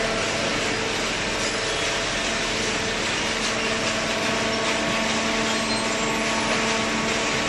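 Hydraulic cardboard baler running: a steady machine hum with several constant tones under an even rushing noise, typical of its electric motor and hydraulic pump.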